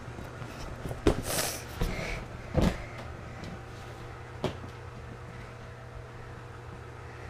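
A few soft thumps and a brief rustle in the first three seconds, then one short knock, from a camera being handled and a child moving on vinyl gym mats, over a steady low hum.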